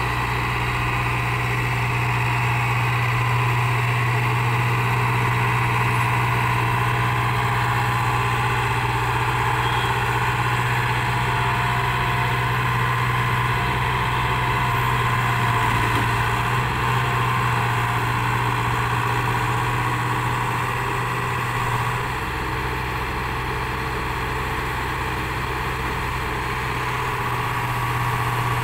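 JCB JS81 tracked excavator's diesel engine running steadily under load as the machine climbs onto a flatbed lorry, with a deep, even hum; the sound eases off slightly about two-thirds of the way through.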